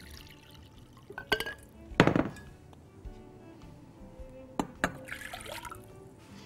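Broth being poured into a measuring cup, with a few sharp clinks and knocks of the cup and utensils, the loudest about two seconds in. Soft background music runs underneath.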